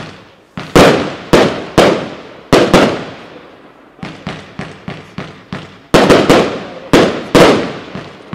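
Consumer firework cake firing a rapid series of shots that burst in the air, each a sharp bang trailing off. Loud bangs come in a cluster from about a second in, then quieter pops, then another loud cluster near the end.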